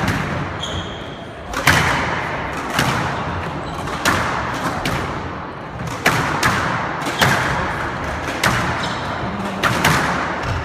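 Squash rally: the ball cracks off rackets and court walls roughly once a second, each hit ringing on in the court's echo.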